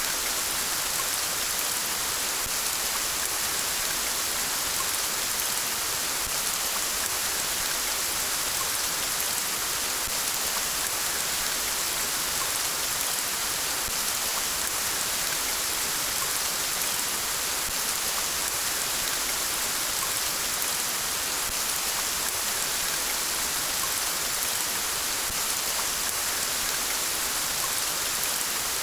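Steady rain falling, an even hiss with fine pattering drops that neither rises nor falls.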